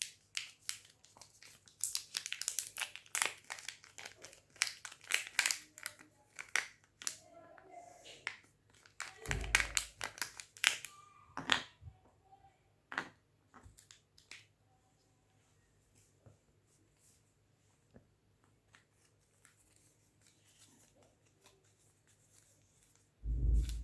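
Crinkling and tearing of a soap bar's wrapper being torn open by hand, in a dense run of sharp crackles for about the first dozen seconds with a dull thud midway, then only faint rustling.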